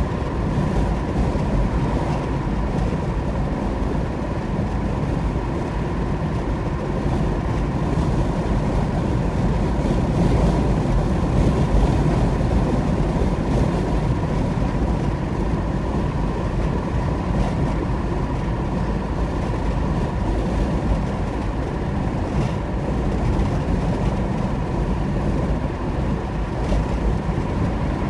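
Steady road and engine noise of a car driving at highway speed, heard from inside the car, with a thin steady tone over it.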